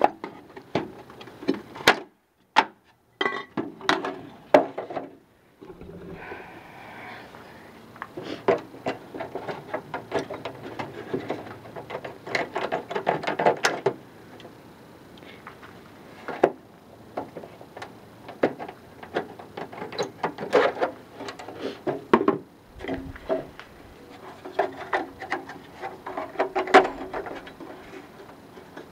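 Tin snips cutting sheet-metal rain gutter in irregular, crunchy snips, mixed with metallic clicks and clanks as the gutter and a downspout outlet are handled.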